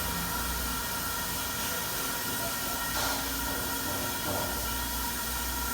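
Steady machine noise: an even hiss with a low rumble and several thin steady high tones, with a faint brief knock about three seconds in.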